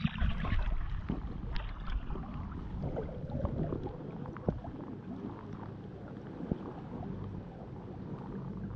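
Lake water sloshing and lapping close by as a dog swims through it, with small splashes; louder in the first second or so, then a steadier wash.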